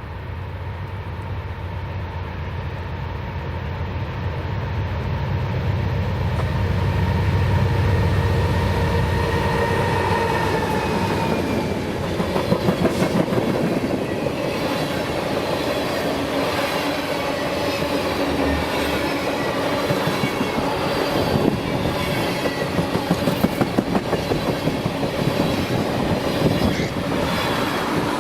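BNSF freight train passing close by: the diesel locomotives' deep engine rumble builds and passes about eight seconds in, then the oil train's tank cars roll by, their wheels clacking rhythmically over the rail joints.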